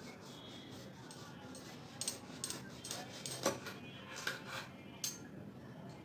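Kitchen knife trimming the stem end of a large eggplant on a wooden chopping board: a run of light clicks and taps from about two seconds in to about five, the sharpest a little past the middle.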